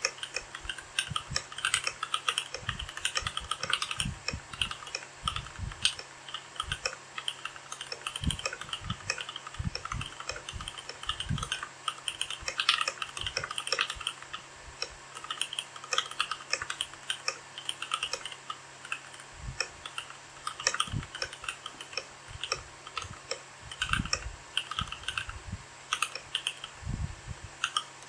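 Keychron K8 mechanical keyboard being typed on in quick, uneven bursts of key clicks, with an occasional deeper thud. The board has foam and painter's-tape (Tempest) mods and lubed stabilisers.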